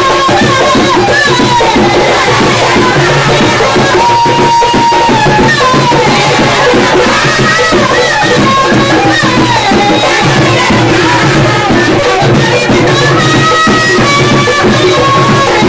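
A woman sings a Panamanian tamborito into a microphone, her melody held and bending over fast, steady drumming. The music is loud throughout.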